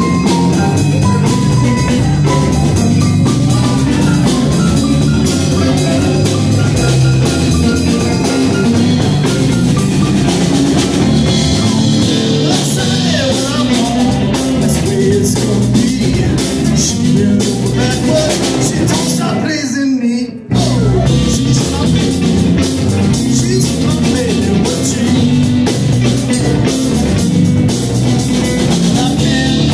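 Live rock band playing loudly, with electric guitar over a drum kit and keyboard. The sound briefly cuts out about two-thirds of the way through.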